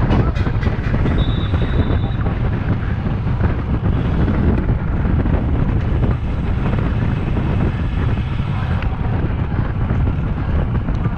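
Wind rushing over the microphone of a rider on a moving road bike: a loud, steady rumble.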